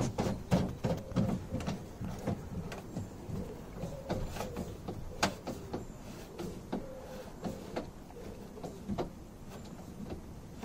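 Irregular clicks and knocks of hard plastic as the Thule Motion XT XXL roof box's mounting dial knobs are turned to tighten the clamp claws onto the roof bars, with hands knocking about inside the box. The clicks are dense at first and thin out later.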